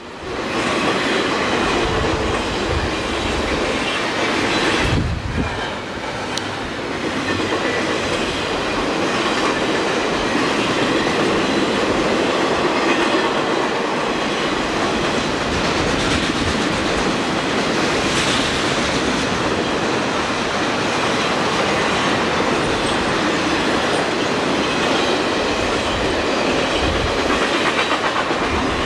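Intermodal freight train rolling past, its cars' wheels clicking rhythmically over the rail joints.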